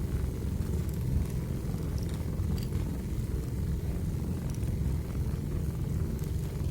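Wood fire burning in a fireplace: a steady low rumble of the flames with a few faint, scattered crackles.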